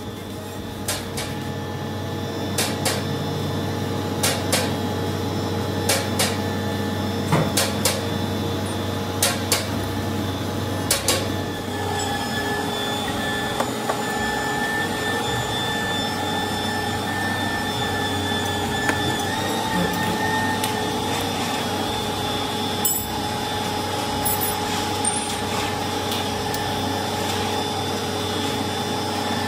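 Irregular sharp taps and knocks as a new axle seal is worked into the transmission case, over a steady hum. From about twelve seconds in, several steady humming tones take over, with only a few stray clicks.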